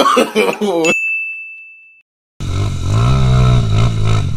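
A single high, bell-like ding sound effect rings about a second in and fades away over about a second. After a brief silence, a trail motorcycle's engine cuts in loudly near the end, its pitch rising and falling a little.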